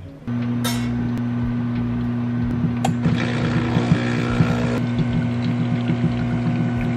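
Home espresso machine's pump humming steadily while pulling a shot of espresso, with a light rattle over the hum; it starts just after the beginning.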